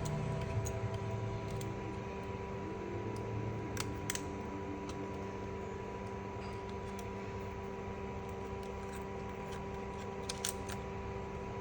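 Scattered small, sharp clicks and taps, the clearest about four seconds in and near the end, over a steady hum made of several fixed tones.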